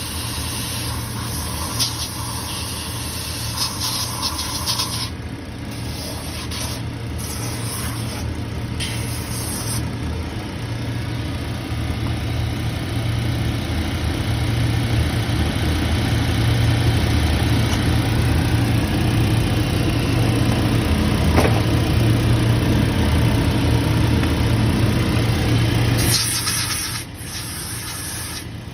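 A machine's motor running steadily with a rubbing, grinding sound, joined by bursts of hiss in the first few seconds. It grows louder through the middle and drops off sharply near the end.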